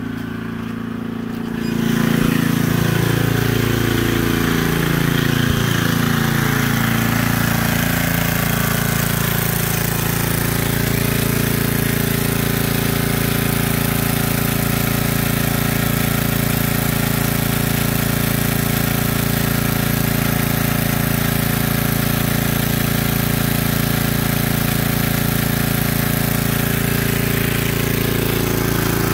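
Portable generator engine running steadily under a load of about 700 watts from the power supply feeding a grid-tie inverter. It grows louder about two seconds in, then holds an even pitch.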